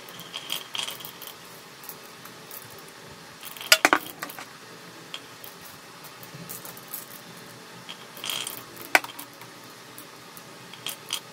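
Glass marbles rolling and clacking on a marble run, with scattered hard clicks. The loudest knocks come in a quick cluster about four seconds in and once more about nine seconds in.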